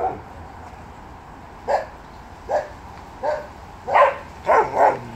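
A dog barking, about seven short barks with uneven gaps that come closer together near the end.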